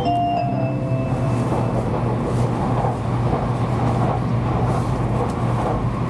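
Interior running noise of a Kyushu Shinkansen train at speed: a steady rumble with a low hum. The last notes of a melody die away in the first second and a half.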